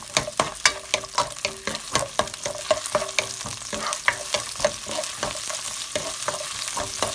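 Sliced garlic sizzling in a little olive oil in a nonstick frying pan, stirred with a wooden spatula that taps and scrapes against the pan about three times a second, less often in the second half. The garlic is being fried until fragrant.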